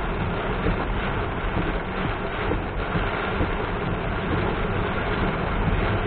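Car driving through heavy rain: a steady hiss of rain and wet tyres over a low road rumble.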